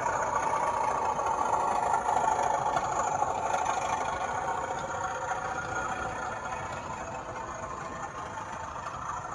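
00 gauge model train running on the track, a steady whirring and rolling that slowly fades after the first couple of seconds.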